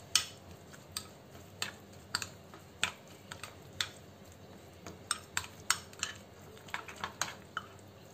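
Steel spoon clinking and scraping against a glass bowl while stirring semolina, yogurt and water into a thick batter, in irregular taps about two a second.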